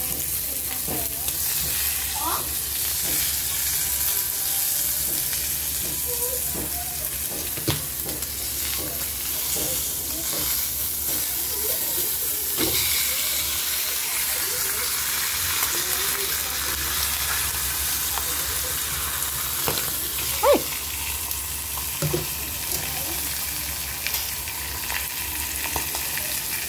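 A slab of parboiled pork belly frying in oil in a pan, with a steady sizzle. A few sharp knocks come through the sizzle, the loudest about twenty seconds in.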